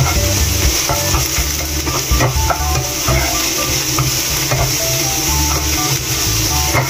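Sliced bitter melon and onion sizzling in oil in a nonstick frying pan as they are stirred with a spatula: a steady hiss with a few scrapes of the spatula against the pan.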